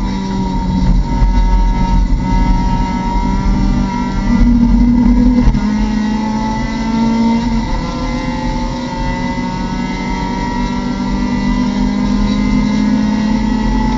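Mazda MX-5 Cup race car's four-cylinder engine heard from inside the cockpit at racing speed, its note falling and rising with the throttle through the corners and climbing steadily near the end as the car accelerates.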